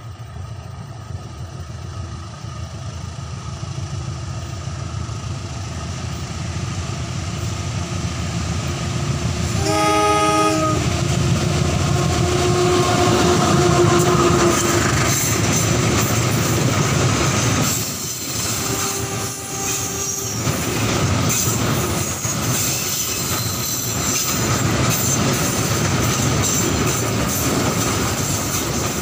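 Container freight train approaching and passing on a curve, headed by a CC 201 diesel-electric locomotive. Its engine grows steadily louder, and its horn sounds briefly about ten seconds in. Then the loaded container flatcars roll past with continuous wheel clatter and some wheel squeal on the curve.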